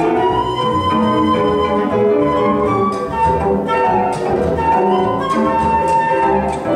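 Live jazz quartet playing: a flute carries the lead line over piano, upright bass and electric guitar.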